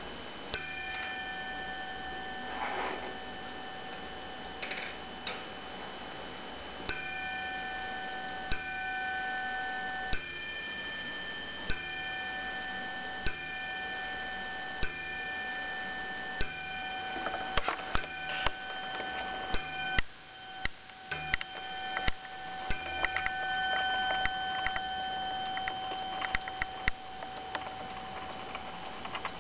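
Zaandam wall clock striking on its brass bell: a ringing chord renewed by a stroke about every one and a half seconds for a dozen or so seconds. Clicks and ticking from the movement come between the strokes.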